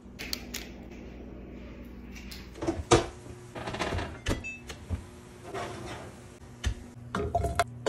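Wall oven door pulled open with a loud clunk, then a metal sheet pan loaded with vegetables slid onto the oven's wire rack, scraping and clanking, with a few more knocks near the end.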